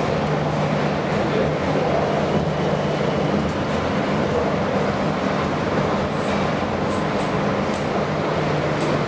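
Refurbished 1974 KONE inclined elevator running: a steady rumble with a constant low hum, heard inside the car, and a few faint light ticks in the second half.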